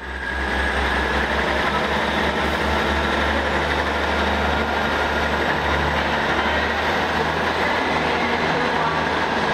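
East Midlands Railway Class 158 diesel multiple unit's underfloor diesel engines running, a steady low throb.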